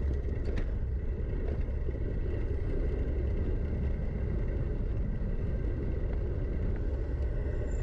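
Steady low rumble of wind buffeting and rough-trail vibration on a rider's camera during a downhill run, with a couple of light clicks about half a second in.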